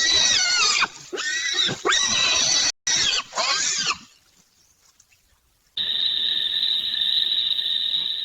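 An animal's loud, high-pitched squealing cries, about five in a row with pitch sweeping up and down, stopping about four seconds in. After a short silence a steady high whine sets in and holds.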